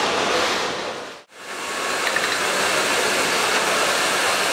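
Bosch GTS 10 XC table saw running free with no wood in the blade, a loud steady motor-and-blade noise. It drops out for a moment about a second in and then returns.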